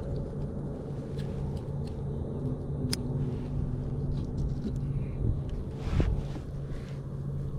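A steady low rumble with a faint humming drone, over which a few sharp clicks come as fishing tackle is handled while a soft-plastic swimbait is threaded onto a hook, the clearest about three seconds in and another about six seconds in.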